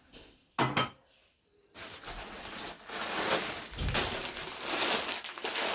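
Plastic grocery bag and packaging rustling as items are handled, with a couple of sharp knocks a little under a second in.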